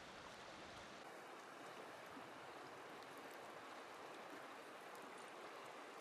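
Faint, steady rush of flowing stream water.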